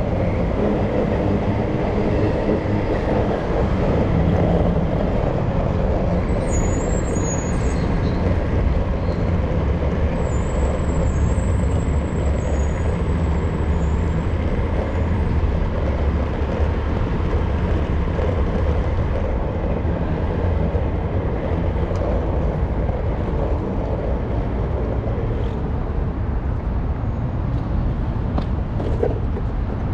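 Steady road traffic noise: a continuous low rumble of vehicle engines and tyres.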